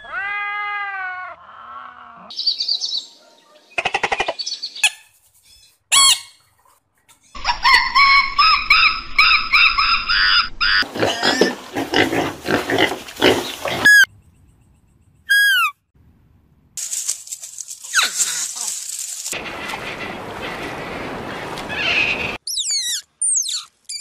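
A run of short animal calls cut one after another, with pitched cries and squeals early on, a pig calling in the middle, and quick, high, falling chirps later.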